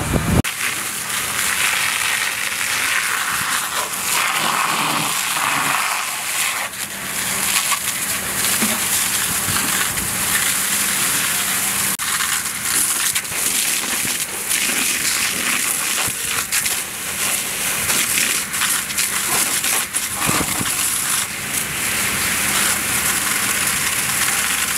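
Fire-hose water jets hissing steadily onto the burning wreck of a tractor and hay baler, with many small crackles as the water hits the hot, smouldering metal and hay.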